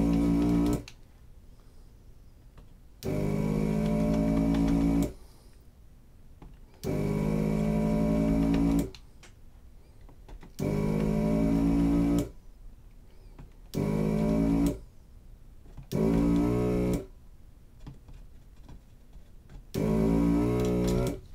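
Electric desoldering gun's vacuum pump buzzing in seven separate runs of one to two seconds each, with short pauses between them, as it sucks molten solder from a rotary encoder's pins on a circuit board.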